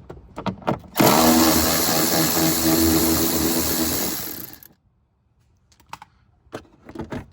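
Cordless power driver with a 10 mm socket spinning a bolt out, running steadily for about four seconds and then winding down, with small clicks of handling before and after.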